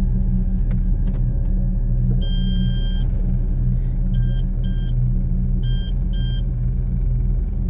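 Low steady rumble of a car driving, heard from inside the cabin, with high electronic beeps on top: one long beep about two seconds in, then two pairs of short beeps.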